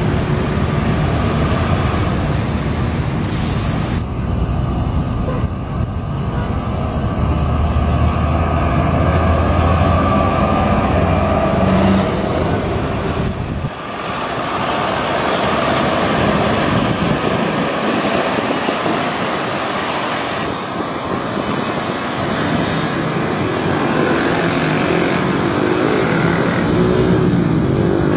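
Road traffic with heavy vehicles passing close by: a steady wash of tyre and engine noise, with a deep engine rumble swelling for a few seconds in the first half. The sound drops suddenly about halfway through, then carries on with less low rumble.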